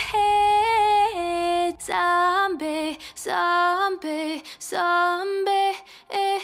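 Music: a woman's voice singing long held notes that slide between pitches, with almost no instrumental backing.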